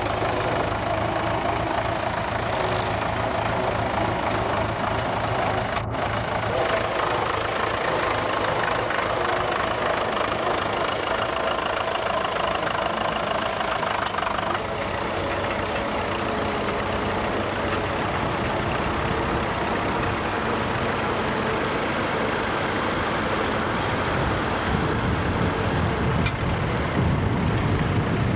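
Vintage tractor engine running steadily, with a momentary dropout about six seconds in.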